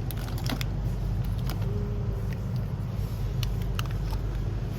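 A steady low hum with a few light, brief clicks and crinkles, the sound of snack packets being handled.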